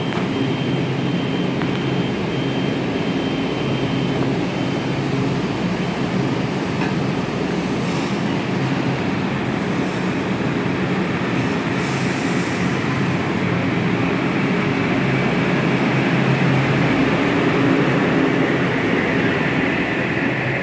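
Metro-North M8 electric multiple unit standing at the platform with a steady equipment hum, giving a few short hisses about halfway through. It then pulls out and grows louder over the last few seconds as it gathers speed past the platform.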